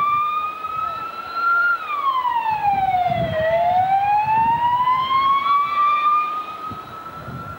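Wailing siren of a car with an orange roof light bar driving by: the pitch climbs slowly, sweeps down to a low point about three and a half seconds in, then climbs again through the rest. A low rumble runs underneath.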